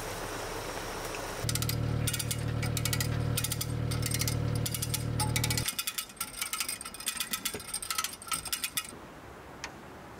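Rapid mechanical ratcheting clicks over a steady low hum; the hum stops about halfway through while the clicking goes on a few seconds more.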